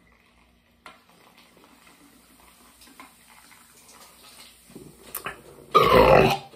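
A man chugging soda from two cans held to his mouth at once, with faint gulping and liquid sounds. Near the end comes a loud sound from his open mouth, falling in pitch.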